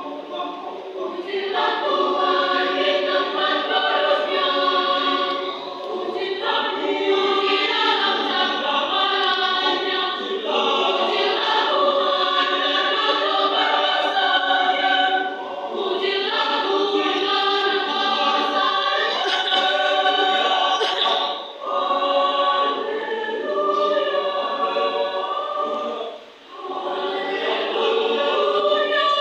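Youth choir singing, phrase after phrase, with short pauses between phrases.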